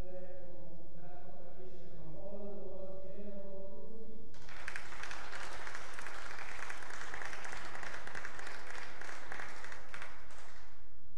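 Choral singing with long held notes runs until about four seconds in. Then applause breaks out all at once and dies away near the end.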